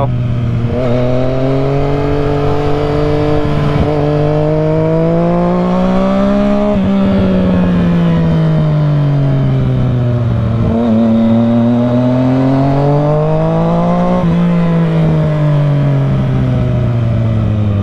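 Yamaha FZ-09's three-cylinder engine under way, its revs climbing slowly, easing off about seven seconds in, climbing again about eleven seconds in and falling away near the end.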